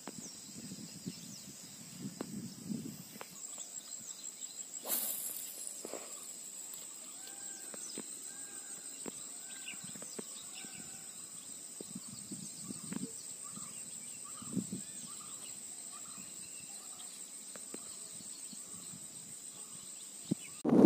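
Outdoor pond-side ambience: a steady high-pitched insect drone runs throughout, with a series of short repeated chirping calls through the middle. Low rustles and thumps come in the first few seconds, and a brief burst of noise about five seconds in.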